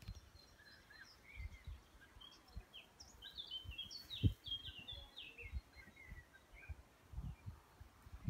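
Songbird singing in the garden: short chirping notes, with a quick run of high notes about three to five seconds in. Scattered low thumps run under it, the loudest just past the middle.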